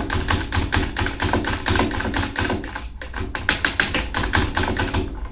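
Rapid scratchy rubbing, many short strokes a second, as a cloth or paper towel is scrubbed against the rifle's action to wipe off old grease.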